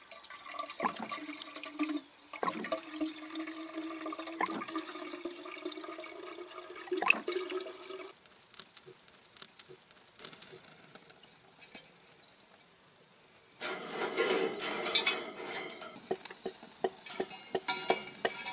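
Water running from a jerry can's tap into a stainless steel Kelly kettle, with a ringing pitch that rises slowly as the kettle fills, for about eight seconds. Later a brief rush of noise, then a run of sharp crackles as kindling catches in the kettle's fire base.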